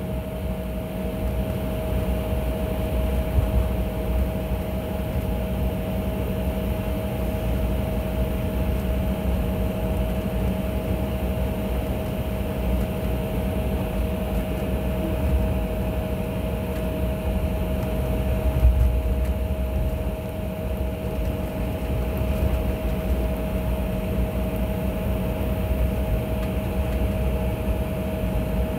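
Airliner cabin noise while taxiing after landing: the jet engines at idle and the cabin ventilation make a steady hum with two steady whining tones over a low rumble.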